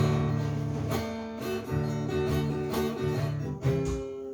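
Handmade acoustic guitar played without singing, chords strummed and picked with low bass notes, changing chord several times.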